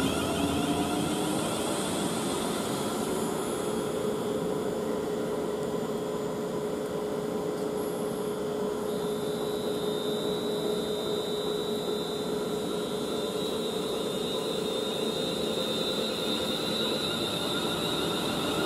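London Northwestern Class 350 Desiro electric multiple unit moving along the track: steady running noise with a whine of held tones over it, and a tone gliding upward in the first couple of seconds.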